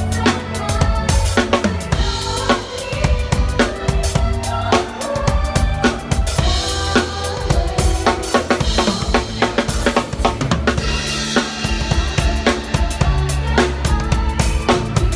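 Drum kit played along to a pop backing track, with bass drum, snare and cymbals in a steady groove over the song's bass and melody.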